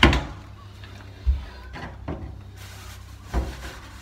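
A few dull knocks and clunks of handling: one right at the start, another about a second in, and one more near the end. A faint steady low hum runs underneath.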